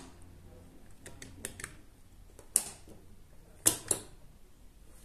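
Mechanical switching clicks of a modular circuit breaker, a wall push-button switch and a Chint impulse relay. There are a few faint clicks about a second in, a sharp click about halfway as the breaker is switched back on and the relay relights the lamp from its remembered state, and two clicks close together near the end.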